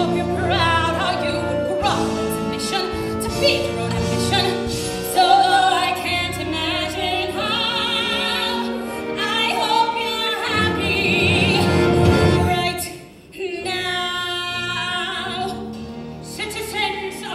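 Live musical-theatre singing: women's voices singing with wide vibrato over a pit orchestra. The sound is picked up from the audience seats, so it is distant and reverberant.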